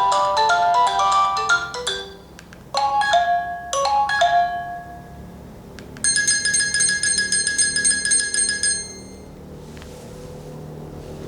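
Nokia 8000 4G ringtones playing one after another. First the end of a quick melody of many short notes, then a short phrase of a few notes about three seconds in, then a high, rapidly pulsing ring about six seconds in. Each stops after a few seconds, and a low hum is left near the end.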